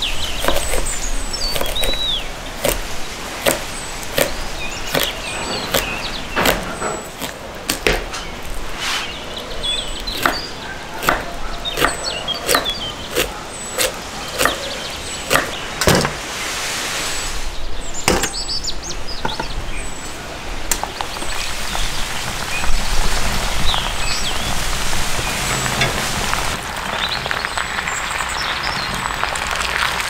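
A kitchen knife chops sharply into a wooden cutting board over and over as crucian carp are scored across the body. Later a steady sizzle takes over: potatoes frying in oil in a cast iron skillet over the fire. Small birds chirp faintly throughout.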